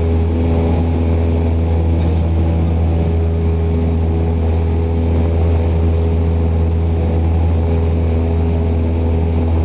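Cessna light aircraft's single piston engine and propeller running steadily in level flight, heard inside the cabin as a loud, even drone with a strong low hum.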